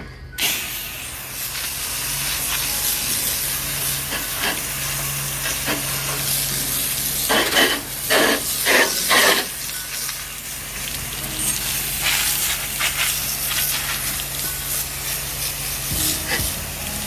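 Pressure washer water spray, switched on suddenly about half a second in: a steady dense hiss of water jetting onto a surface, with several louder spurts around the middle, while rinsing off cleaning solution. A low steady hum runs underneath.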